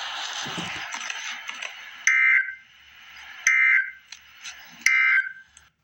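Emergency Alert System end-of-message data bursts: three short warbling digital bursts about a second and a half apart, marking the end of the alert. They follow about two seconds of hiss, and a fainter hiss carries on between the bursts.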